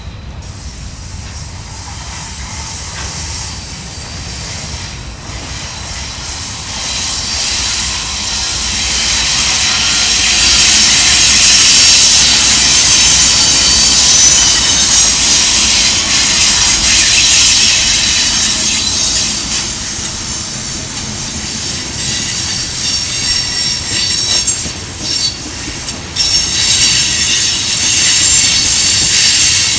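Union Pacific freight train rolling through a curve, its steel wheels squealing against the rails in steady high tones over a low rumble. The locomotives pass around the middle, followed by tank cars. The squeal builds to its loudest near the middle, eases for a while, and comes back strongly near the end.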